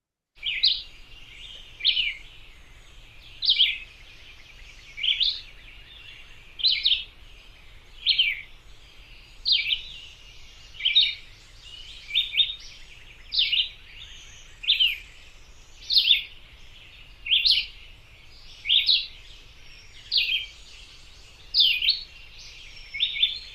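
Red-eyed vireo singing its short, slurred song phrases over and over, about one every second and a half, over a faint steady outdoor hiss.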